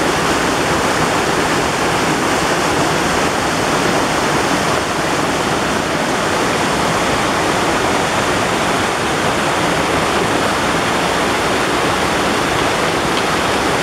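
A shallow rocky stream rushing in small cascades over and between mossy boulders: a steady, unbroken rush of falling water.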